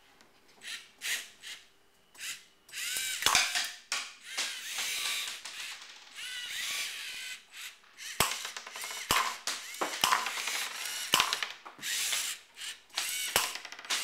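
Lego Mindstorms NXT servo motors whining in short bursts as the tracked shooterbot drives and turns, each burst rising and falling in pitch. Several sharp clicks come in the second half.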